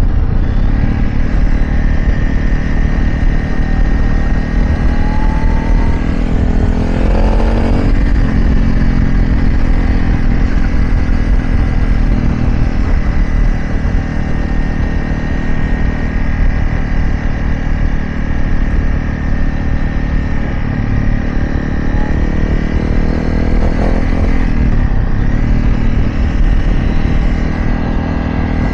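Dirt bike being ridden, running steadily with strong low wind rumble on the microphone. Its pitch rises and falls twice, around seven seconds in and again near twenty-four seconds.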